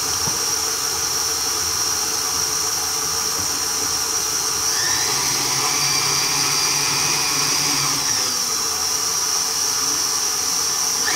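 Electric tilt-head stand mixer running steadily with a high motor whine, its beater working butter, sugar, egg and vanilla together. A second, higher whine joins for a few seconds in the middle.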